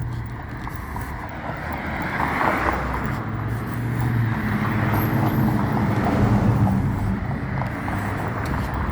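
Road traffic: motor vehicle engines and tyres on a busy street, getting louder through the middle as a vehicle draws close.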